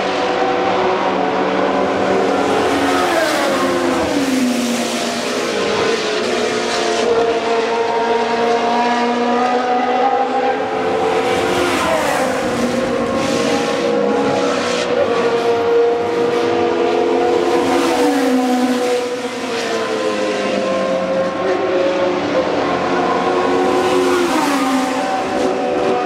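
Historic Formula One cars' high-revving racing engines passing at speed, with several engine notes overlapping. The pitch drops in steps a few times (around 3–5 s, 12 s, 18 s and 22 s), as the cars change down and lift.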